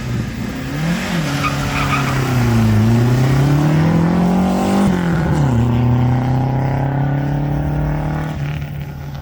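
Historic rally car's engine pulling away from a stage start: a quick rev blip, then revs climb for a few seconds, drop sharply at an upshift about five seconds in, and the car carries on in the next gear, fading near the end.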